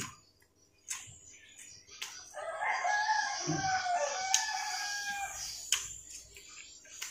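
A rooster crowing once, a long bending call that starts a little over two seconds in and lasts close to three seconds. A few sharp clicks are heard before and after it.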